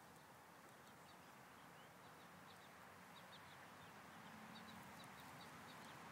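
Near silence: faint outdoor ambience with many short, high bird chirps scattered through it.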